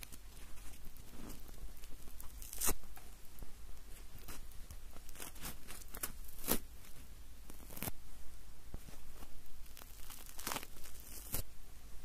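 Close-miked marshmallows being pulled apart: irregular sticky tearing and crackling, with a few louder snaps, the strongest about two and a half seconds in and again near the end.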